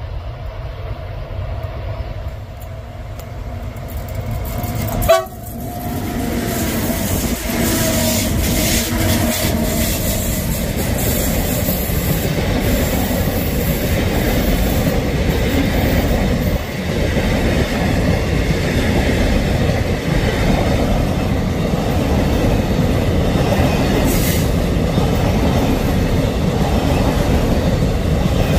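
Train of Transnet class 18E electric locomotives approaching with a steady hum, a sudden loud burst about five seconds in as they pass, then the long car-carrier wagons rumbling and clattering past on the rails.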